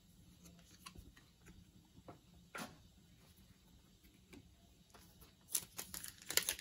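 Football trading cards handled and slid against one another in the hands: faint soft clicks and rustles. Near the end, a foil card pack's wrapper crinkles as it is picked up.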